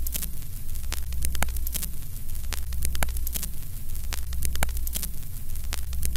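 Vintage film-countdown sound effect: a steady low hum under crackle and scattered pops like worn film running through a projector, with a pulse repeating about once a second.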